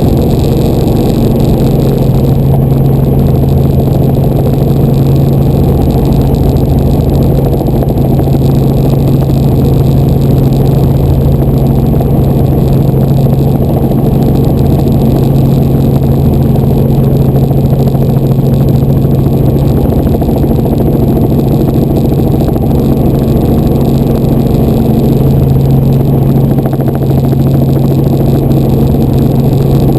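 Light helicopter in flight heard from inside the cabin: a steady, loud drone of engine and rotor with a constant low hum.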